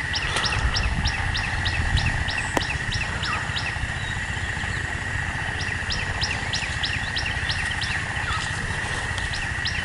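A bird calling in runs of short, quick, high chirps, about three a second, over a steady high drone and a low rumble.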